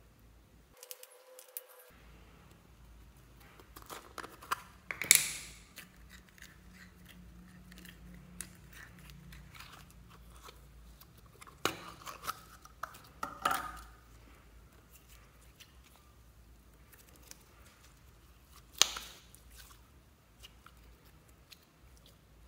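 Small plastic slime jars and glitter shakers handled over a plastic tub of slime: scattered light clicks and taps, with a few sharper plastic knocks, the loudest about five seconds in and again near the end.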